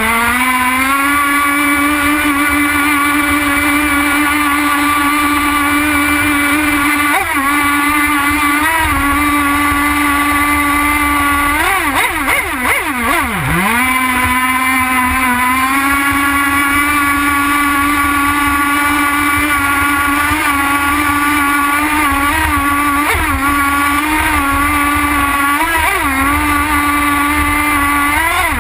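Two-stroke nitro glow engine of a radio-controlled boat running at high revs, heard from a camera mounted on the hull. Its pitch holds steady, sags briefly in the turns, and falls sharply about twelve seconds in before climbing back to full speed a couple of seconds later.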